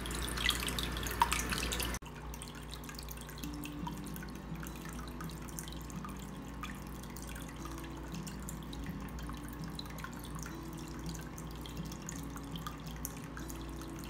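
Small tabletop waterfall fed by a submersible pump, water trickling off stacked stones and dripping and splashing into a water-filled bowl: a steady light patter, broken briefly about two seconds in.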